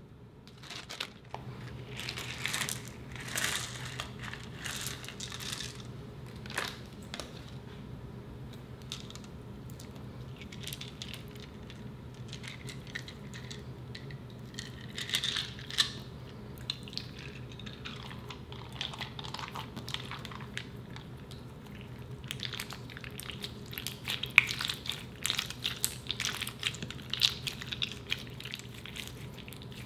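Clear slime packed with small plastic pig charms being pressed, stretched and folded by hand: sticky crackling and many small clicks as the charms knock together, busiest near the end as the slime is balled up.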